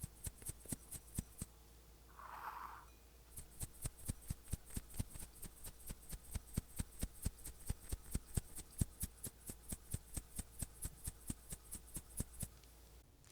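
A long run of sharp, evenly spaced clicks, about four or five a second, with a pause of under two seconds near the start, after which the clicking resumes and runs on.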